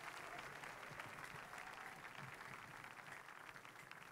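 Faint applause from a congregation, many hands clapping, slowly dying away toward the end.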